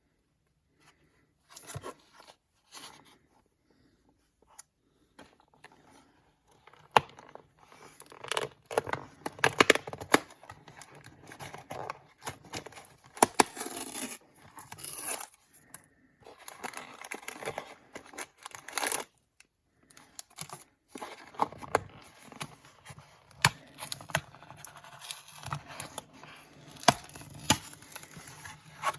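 Toy packaging being torn open and handled: irregular tearing, crinkling and scraping with sharp clicks, sparse at first, busiest in the middle, with a brief pause about two-thirds of the way through.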